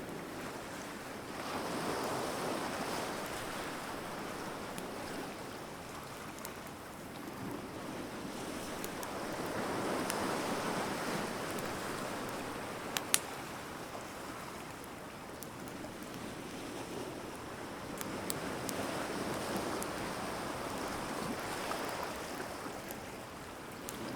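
Surf washing ashore in slow swells, with a few sharp pops and crackles from the burning wood of a beach bonfire. The loudest pop comes about halfway through.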